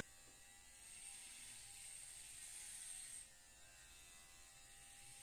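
Electric hair clippers running with a faint steady buzz as they shear through long hair on a man's scalp; a thin high whine in the sound drops out about three seconds in.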